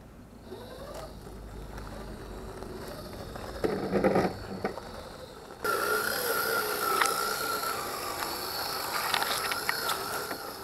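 RC scale crawler's electric motor and geared drivetrain whining as it drives, with a cluster of knocks and scrapes about four seconds in. A little past halfway the whine cuts in louder and steadier, wavering in pitch, with a few sharp clicks.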